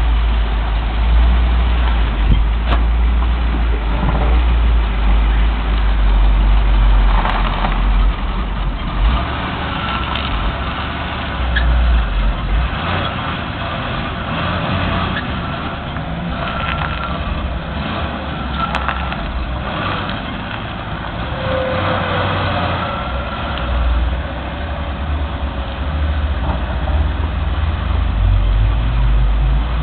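1959 Cadillac Superior ambulance's 390 V8 running at low speed through a newly fitted exhaust system, a steady deep rumble that swells and eases slightly as the car creeps in reverse.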